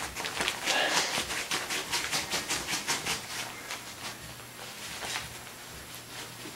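Italian Greyhound digging at a thick duvet to bury a toy: a quick run of scratchy rustles, about six a second, for the first few seconds, then fainter rustling as it noses into the covers.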